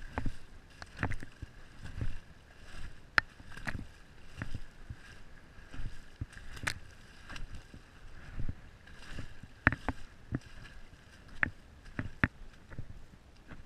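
Raindrops tapping irregularly on the camera housing as sharp clicks, over low knocks and water sloshing.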